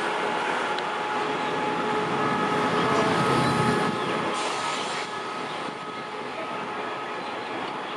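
SRT CDA5B1 diesel-electric locomotive, built by CRRC Qishuyan, running along the station track: engine rumble and wheel noise under a steady whine. Loudest in the first half, then fading after about four seconds.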